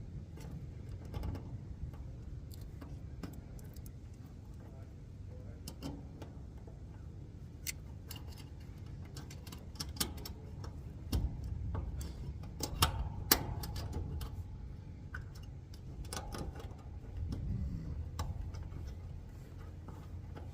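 Irregular sharp clicks and knocks from hand work on metal parts and tools, over a low steady hum, with a cluster of louder knocks a little past the middle.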